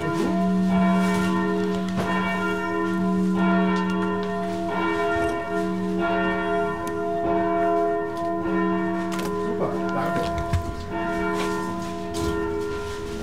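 Church bells ringing continuously, several bells blending into a steady, swelling hum. A few light knocks of a spoon against a steel tray sound on top.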